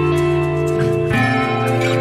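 Background music: sustained instrumental notes that change to a new chord about a second in.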